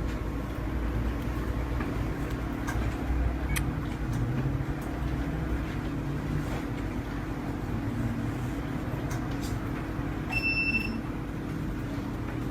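Steady low hum of background noise with a few faint clicks, and one short high electronic beep about ten seconds in.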